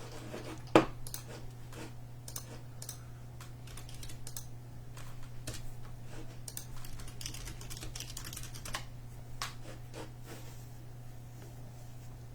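Trading cards being handled and shuffled, giving sparse, irregular light clicks and taps, one sharper click about a second in. A steady low electrical hum runs underneath.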